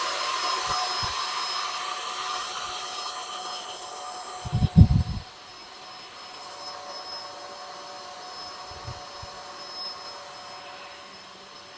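Electric air pump running steadily, blowing air into an inflatable column, with a steady high whine over a rushing sound that slowly grows fainter. A brief low thump a little under halfway in is the loudest moment.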